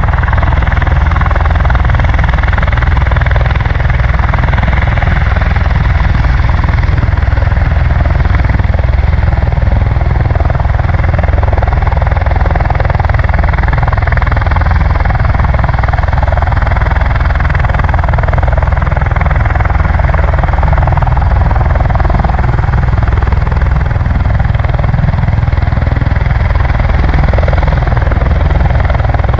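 Marine Corps MV-22 Osprey tiltrotors running their engines and proprotors on the ground: a loud, steady drone with a heavy low-pitched thump. The engines are warming up before departure.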